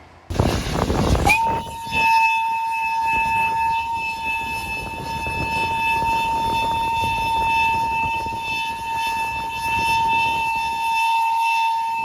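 Train horn sounding one long, steady blast of about ten seconds on a single note, over the rumble of the train. It starts about a second in, just after a loud rush of noise.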